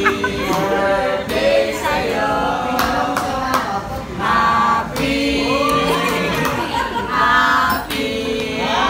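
A small group of voices singing a birthday song together without instruments, with hand claps.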